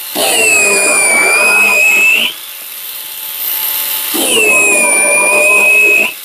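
Parkside PGHSA 20 LI cordless 20 V mini chainsaw running in two bursts of about two seconds while cutting branches. Its high electric-motor whine sags in pitch at the start of each burst, then holds steady, and it drops away between the bursts.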